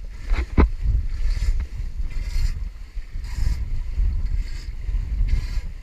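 Strong wind buffeting the microphone with a low rumble, while the bow of a small wooden sailing dinghy, sailing hard and heeled over, slaps through waves and throws spray about once a second.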